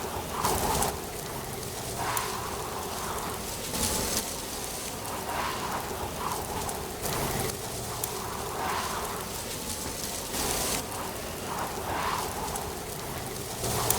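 Wind blowing through dry autumn leaves, rustling in swells every couple of seconds over a steady hiss.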